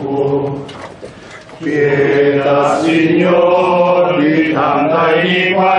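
A group of voices singing an Italian religious hymn together. The singing drops off briefly about a second in, then comes back in full at the next line.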